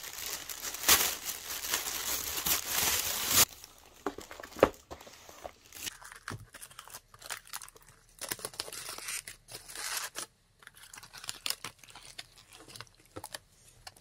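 A plastic carrier bag rustling and crinkling as it is pulled open, loudest for the first three and a half seconds. Then quieter, uneven crinkling of aluminium foil being peeled back from a food box, with scattered small clicks.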